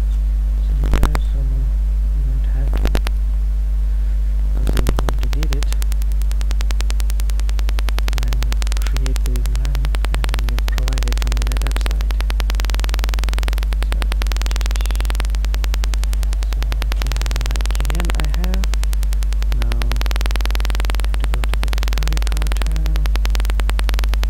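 Loud, steady low electrical hum from a poorly working microphone, with a few short clicks in the first five seconds. A buzzing, crackling noise covers most of the rest.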